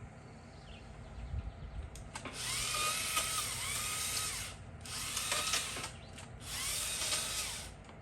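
Chainsaw cutting wood in three bursts: the first about two seconds in and lasting about two seconds, then two shorter ones. Each time the motor's pitch rises as it speeds up, holds while it cuts, and falls away as it is let off.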